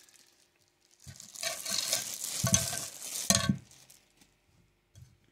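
Clear plastic bag crinkling for a couple of seconds as the plastic mounting legs of an aquarium light are pulled out of it, with two knocks from the legs being handled.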